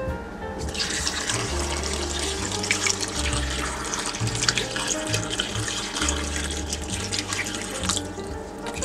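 A stream of water running into a stainless steel pot of cut potatoes, filling it. It starts about a second in and stops shortly before the end, over background music.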